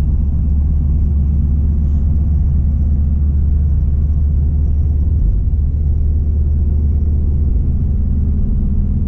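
Steady low rumble of road and engine noise inside a moving pickup truck's cab at highway speed.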